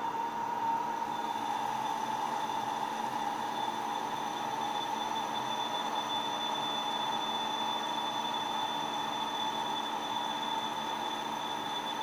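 CNC machine running steadily, a constant whine with two steady pitches, one high and one higher, over a noisy hum with no breaks.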